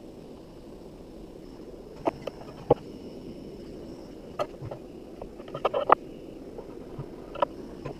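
Hand tools and small metal pieces being picked up and set down on a wooden slab: a string of short clicks and knocks, loudest about a third of the way in and again near the end, over a steady low rushing noise.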